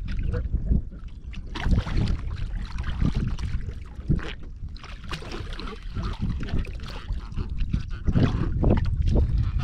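Water splashing and slapping at the side of a wooden boat as a hooked singhara catfish thrashes at the surface and is pulled out, over a steady rumble of wind on the microphone. The sound grows louder near the end as the fish comes up out of the water.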